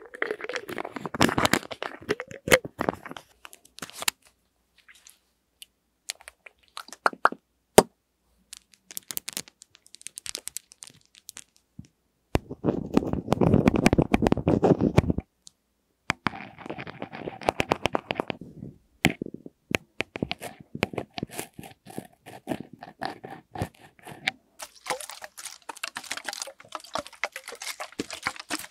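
Close-miked ASMR trigger sounds on a stereo recorder's microphones: a plastic bottle cap twisted with crackling clicks, then rings clicking and rubbing against the microphone heads, with sparse taps between. Near the end, water sloshes in a shaken plastic water bottle with a bright, hissy wash.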